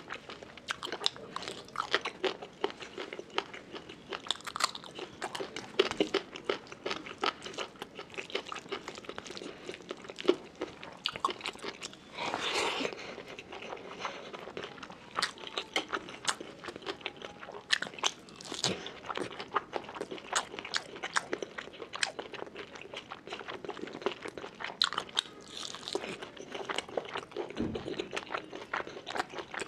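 Close-miked eating sounds: a person chewing mouthfuls of rice and curry eaten by hand, with wet smacks and clicks several times a second and a brief louder noisy sound about halfway through.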